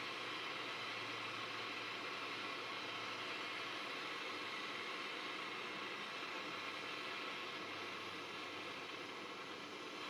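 MSR camp stove burner running steadily with a constant hiss, turned up a little to heat a cast iron pan for seasoning.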